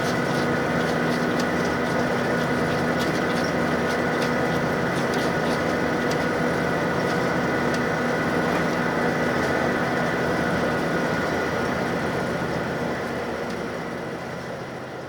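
Cabin noise of a JR Shikoku 2000-series diesel railcar under way: a steady engine and transmission hum over rail rumble, with faint clicks. It fades out near the end.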